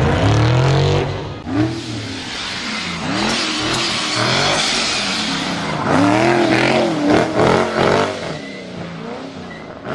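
Ford Mustang GT rally car's V8 revving hard up and down again and again as the car drifts through corners, with tyre noise from the sliding rear wheels, loudest around the middle.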